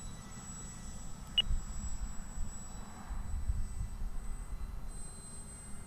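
Wind buffeting the microphone in uneven low gusts, over a faint steady high-pitched whine, with one short high chirp about a second and a half in.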